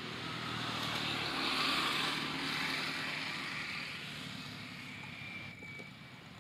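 Engine noise of a passing motor vehicle, swelling to its loudest about two seconds in and then slowly fading.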